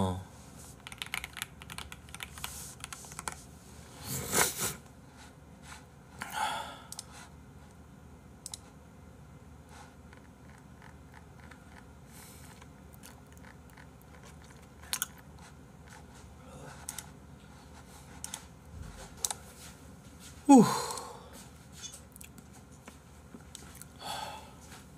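Scattered computer-keyboard clicks and a few short breathy sniffs or exhales, then one loud vocal groan that falls steeply in pitch about twenty seconds in.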